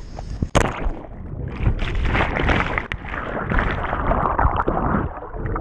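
A cliff jumper's action camera hits the lake with a sharp splash about half a second in. Then comes the muffled, continuous rushing and bubbling of churned water heard from underwater.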